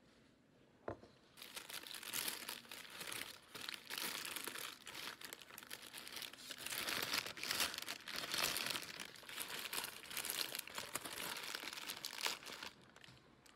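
Paper pastry bag and wrapper being opened and unfolded by hand, crinkling and rustling for about eleven seconds before stopping near the end. A single knock comes about a second in.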